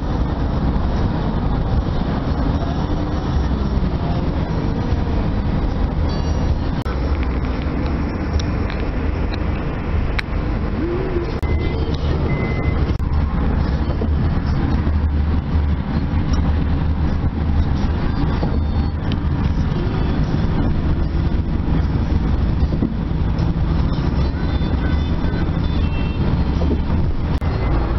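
Steady road and engine noise of a car driving at highway speed, heard from inside the cabin as a continuous low rumble.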